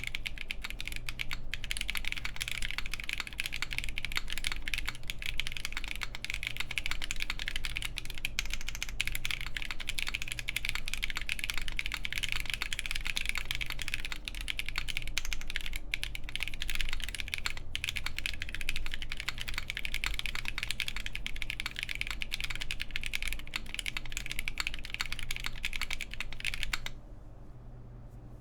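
Fast, continuous typing on a Gray Studio BD60 gasket-mount mechanical keyboard with Krytox-lubed Haimu Pastel Peach linear switches, FR4 plate and GMK keycaps: a dense run of keystroke clacks. The typing stops about a second before the end.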